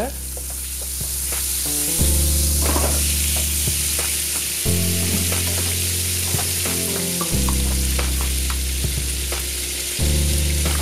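Vegan butter melting in a hot cast-iron skillet: a steady sizzle with small crackling pops that builds over the first couple of seconds as the butter foams. Low background music notes change every few seconds underneath.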